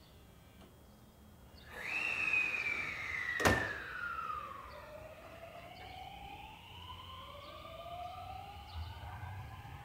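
Electric train traction motors whining. From about two seconds in, a high tone falls steadily as a train slows. A single sharp click comes a second and a half later, and then several rising tones climb together as a train accelerates.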